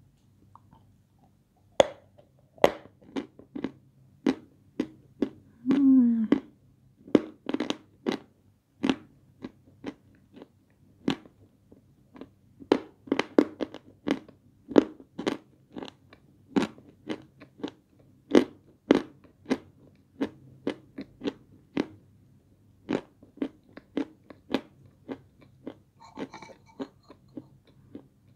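Close-up crunching and chewing of hard, dry chunks of peschanka, a white edible clay: sharp crisp crunches, one or two a second, as the pieces are bitten and ground between the teeth. A short falling hum from the eater's voice about six seconds in.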